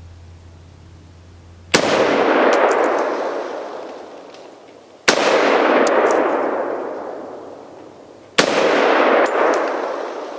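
Three shots from a Springfield M1A Scout Squad semi-automatic rifle in .308 / 7.62×51, about three seconds apart, each followed by a long rolling echo. Under a second after each shot comes a faint metallic ping, the bullet striking a steel target.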